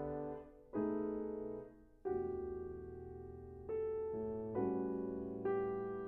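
Background piano music: slow chords, each struck and left to ring and fade before the next.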